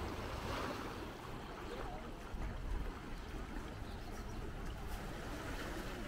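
Gentle sea waves washing onto a sandy beach, with wind rumbling on the microphone.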